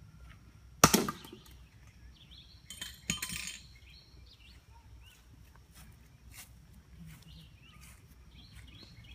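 A single sharp knock about a second in, then a brief clatter with clinks a couple of seconds later, over faint outdoor background with small chirps.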